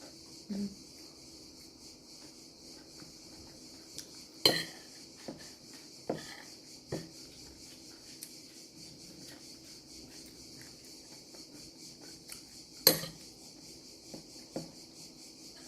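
Cutlery clinking and scraping against a plate while eating: scattered light clicks, with two sharp, louder clinks about four and a half seconds in and near the end. A steady high-pitched hiss runs underneath.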